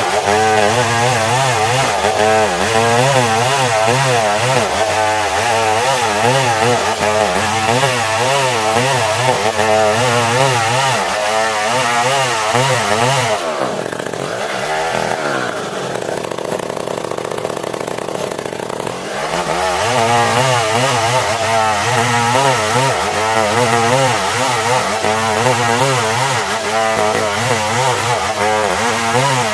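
Stihl 070, a big two-stroke chainsaw, running hard while ripping a log lengthwise into planks, its engine note wavering under the load of the cut. About halfway through it drops to a lower speed for some six seconds, then revs back up and carries on.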